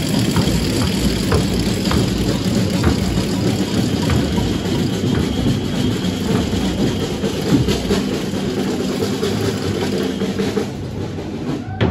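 Marchers' bass drums beating a steady march rhythm, about two strikes a second, over a steady low engine hum.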